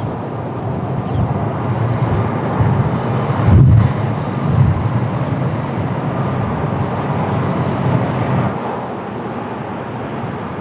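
Jet airliner engines running as it comes in to land in a strong crosswind, with gusts of wind buffeting the microphone. A loud gust about three and a half seconds in.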